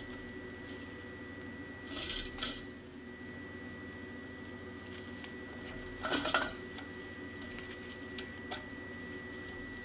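Metallic clinks of a steel combination wrench worked on a tap in an oiled aluminium plate: scattered light clicks, with two short spells of clinking about two and six seconds in. Under it runs a steady hum with a faint high whine.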